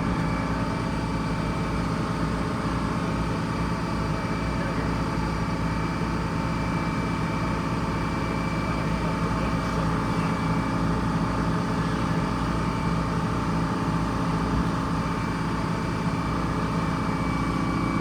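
Bus engine driving a sawmill, running steadily at a constant speed with an even hum and rumble.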